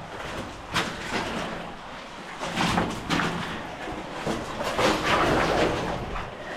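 Irregular scraping, rustling and knocking of a person crawling over rock and clay mud on hands and knees.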